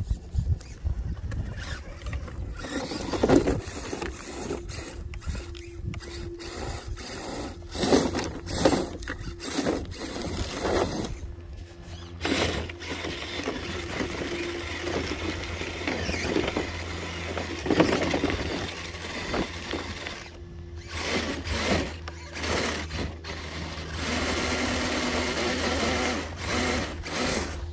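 Redcat Gen8 RC rock crawler's Hobbywing Xerun Axe brushless motor and drivetrain whining in bursts under throttle. Short scrapes and knocks come from the tyres and chassis on dirt and rock, and the whine runs steadier and louder near the end.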